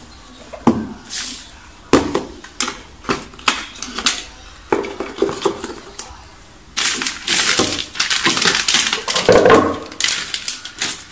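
Cardboard packaging of an iPad Pro box handled on a wooden floor: a string of light taps and knocks, then, about seven seconds in, a few seconds of loud rustling as the thin protective wrapping sheet is lifted off.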